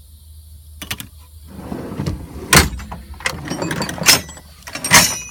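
Metal tool chest drawers sliding on their runners, with several sharp knocks and clinks of metal tools, the loudest near the middle and near the end.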